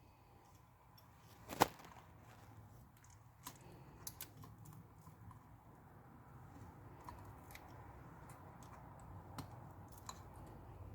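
Small repair tools clicking and tapping on an iPad during screen removal, with one sharper click about a second and a half in.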